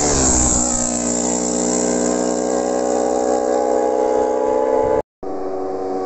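Racing motorcycle at full speed: its engine note drops sharply in pitch as it passes close by, then holds a steady note. The sound cuts off abruptly about five seconds in, and another racing motorcycle engine is heard after the break.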